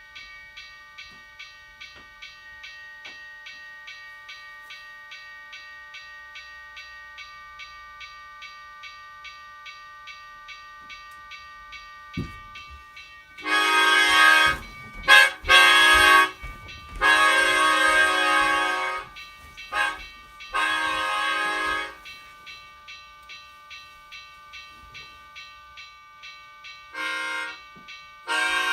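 Railroad grade-crossing bell ringing steadily at about one and a half strikes a second. A train rumbles in, and its five-chime air horn, a Nathan Airchime K5LA, sounds a series of long and short blasts for the crossing. It blows one more short blast near the end.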